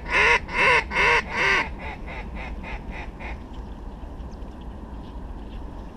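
Mallard-style quacking: a fast, even series of loud, nasal quacks, about two and a half a second, that drops away after about a second and a half into quieter quacks fading out by about three seconds in. A steady low rumble runs underneath.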